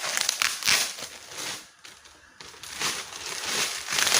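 Package wrapping being handled and opened by hand: irregular crinkling and rustling, with a short lull about two seconds in.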